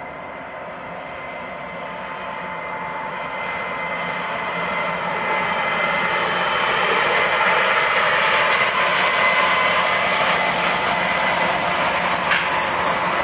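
HO scale model diesel locomotives rolling toward the camera and passing close by, a steady running noise that grows louder over the first eight seconds or so and then holds.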